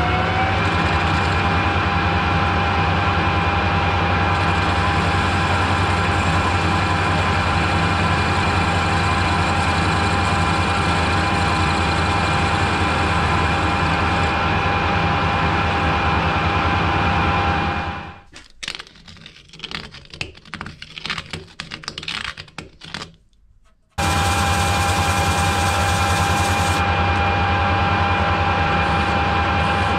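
Metal lathe running while facing off the end of a pipe in the chuck; its steady whine rises and levels off in the first second. About 18 s in the running dies away, leaving a few light clicks and taps. About 24 s in the running lathe comes back suddenly at full level.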